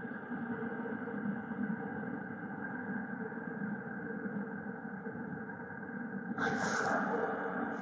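Diesel air heater running on high: a steady mechanical hum with several held tones. There is a brief louder rushing noise about six and a half seconds in.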